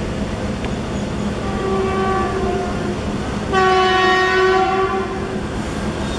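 Indian Railways WAP-1 electric locomotive's horn sounding twice over a steady train rumble: a fainter blast about a second and a half in, then a louder one lasting about two seconds.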